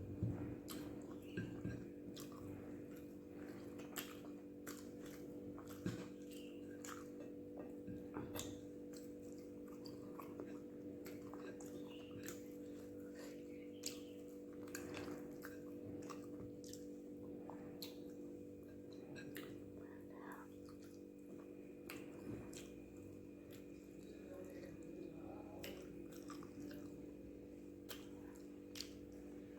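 Close-up sounds of a person eating rice and pepper egg gravy: wet chewing and mouth clicks, irregular, over a steady low hum.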